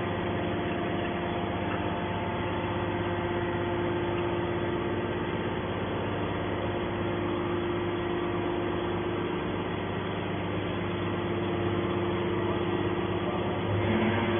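Steady mechanical hum, like a motor running evenly, with a few held tones and no change in pitch or level.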